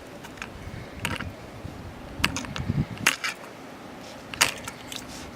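A few sharp clicks and scuffs spaced about a second apart: footsteps of someone walking outdoors.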